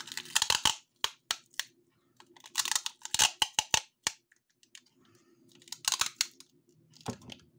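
Clear packing tape being pulled off its roll in several short crackling bursts as it is wound tightly around a battery pack of cylindrical lithium cells.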